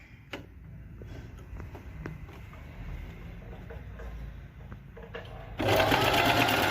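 A few faint clicks, then about five and a half seconds in the Singer Fashion Maker 8280 electric sewing machine starts up and runs at a steady fast stitch, sewing a zigzag picot hem.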